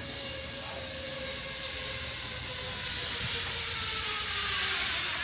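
Zip line trolley running along its steel cable: a whirring hiss with a thin whine that slowly falls in pitch, the hiss swelling louder about three seconds in as the rider comes closer.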